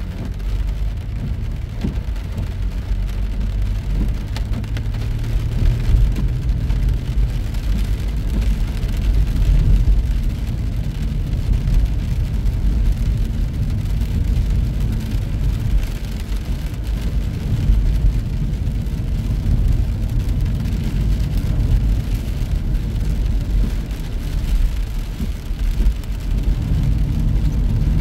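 A vehicle driving on a highway in rain: a steady low rumble of road and engine noise, with the hiss and patter of rain over it.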